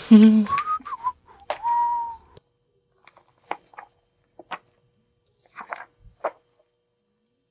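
A person whistles a few short notes, the last held for about half a second. Then come scattered soft rustles and taps of paper as magazines and mail are leafed through and set down.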